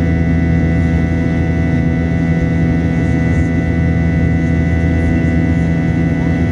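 Steady cabin drone of a jet airliner climbing after take-off: engine and airflow noise with a strong low hum and several steady whining tones above it.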